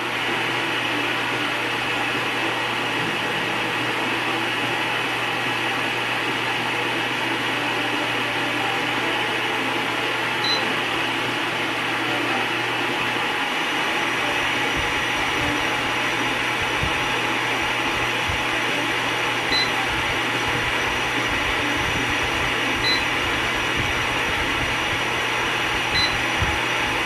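Bladeless fan running with a steady rush of air over a constant motor hum, with occasional low rumbles in the second half. Short high beeps sound five times, spread through the second half.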